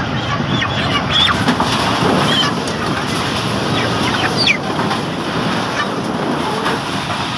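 Broiler chickens squawking and clucking in short falling calls, many birds at once, over a constant rushing noise as they are handled and slid down a metal chute.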